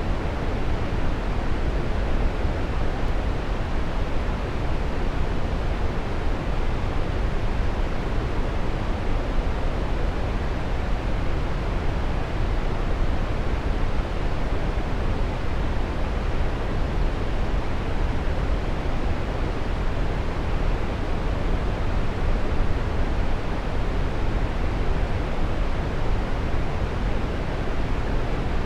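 Waterfall: water falling steadily in an even, full rushing noise, heaviest in the low end.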